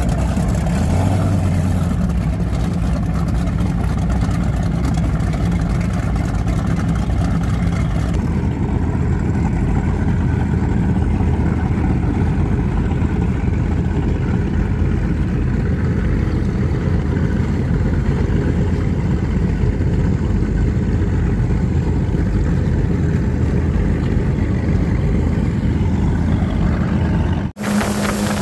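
Performance powerboat engines, including big twin outboards, running at low speed in a steady low engine note. The sound cuts out briefly near the end and comes back as another boat's engine with a higher hum.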